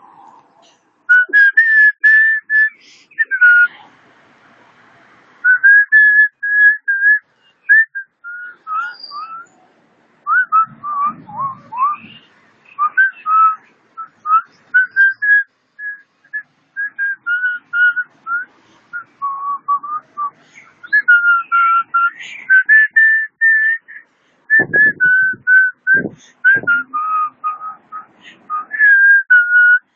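A tune whistled in short, clear notes that step and glide up and down, phrase after phrase. A few low thumps come about three-quarters of the way through.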